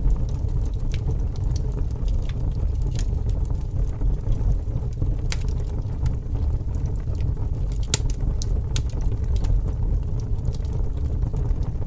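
Bonfire burning, wood crackling with scattered sharp pops over a steady low rumble.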